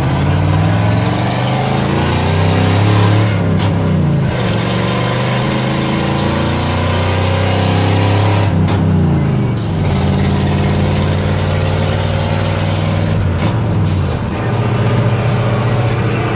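1970 Ford F-100's 302 V8 with a leaking exhaust, heard from inside the cab as the truck accelerates through the gears of its four-speed manual. The engine note climbs, then drops at three gear changes, about 4, 9 and 14 seconds in.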